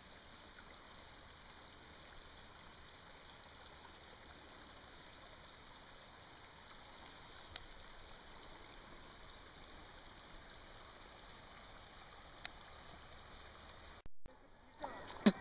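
Faint, steady rushing of a small creek flowing over rocks. Near the end the sound breaks off briefly and there is a sharp click.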